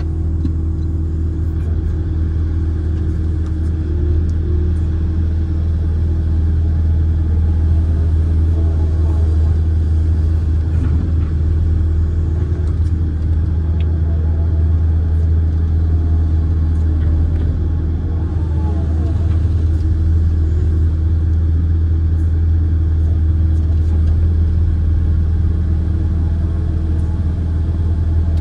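Diesel engine of a Kobelco amphibious excavator running steadily as a deep, even hum while the boom and bucket work, heard from the operator's cab.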